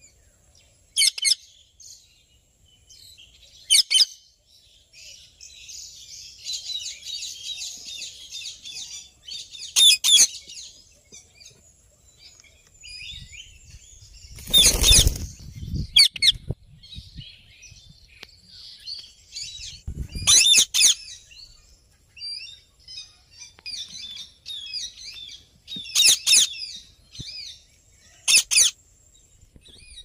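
Indian ringneck parakeets calling: sharp, loud screeching calls about eight times at irregular intervals, with softer high chattering in between. The loudest call, about halfway through, and another about two-thirds through carry a low rumble beneath them.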